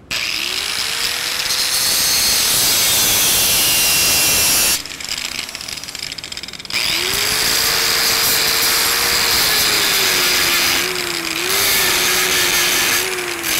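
Porter-Cable electric angle grinder with a thin 90-thousandths wheel grinding in the root gap between two tacked steel pipe sections, opening the gap up to 90 thou for the root pass. It spins up and grinds for about four and a half seconds, is let off, then spins up again about seven seconds in and grinds on. The motor's pitch wavers as the wheel bears on the steel.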